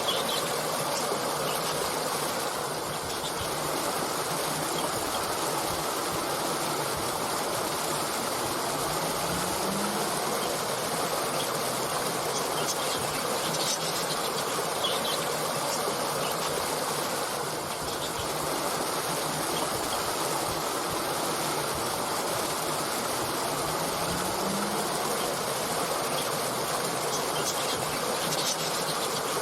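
Water stream flowing steadily, with faint short bird chirps here and there.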